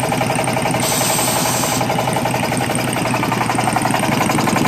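Old pneumatic impact wrench hammering continuously in a rapid rattle while it is tested for torque, with a burst of air hiss about a second in that lasts about a second. It is running on less than 40 psi of air and has almost no torque.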